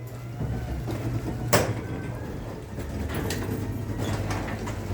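Genie belt-drive garage door opener running steadily as it pulls the garage door down, with a sharp knock about a second and a half in.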